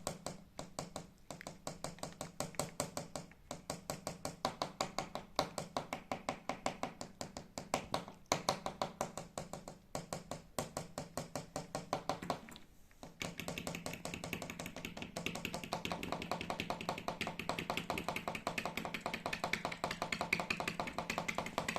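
Rapid light tapping, several small clicks a second, in runs with short pauses, becoming steadier and more even about halfway through.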